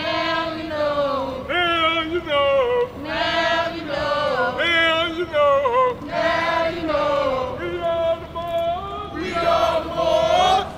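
A group of voices chanting a rhythmic, sung chant in short repeated phrases, about one every second and a half.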